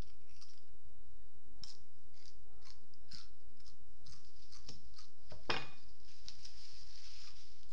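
Crisp crunching and wet clicking of a raw jalapeño pepper being chewed, about two a second, with one louder crunch about five and a half seconds in.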